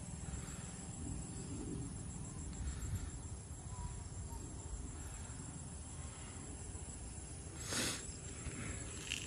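Steady, high-pitched pulsing trill of insects over a low rumble, with a brief rush of noise about three-quarters of the way through.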